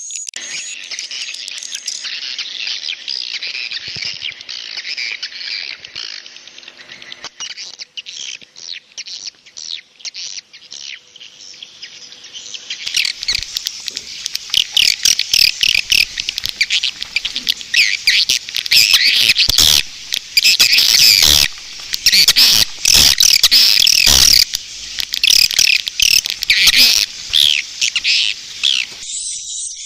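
Swiftlet lure call: a dense chorus of high twittering and chirping edible-nest swiftlet calls of the 'inap' (roosting) type, played to draw swiftlets in to roost. About halfway through the chorus grows louder, and many sharp clicks join it.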